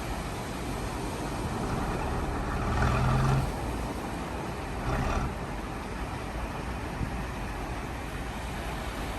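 Construction machinery engine running with a steady rumble and hiss; a short louder pitched sound rises over it about three seconds in, and again briefly near five seconds.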